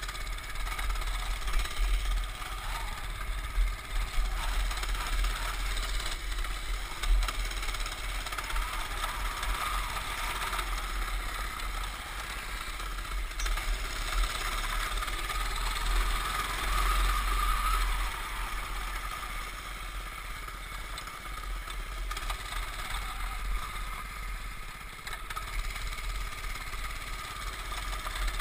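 Baja mini bike's small single-cylinder engine running under way, the engine note rising and swelling a little past halfway, with wind buffeting the bike-mounted microphone.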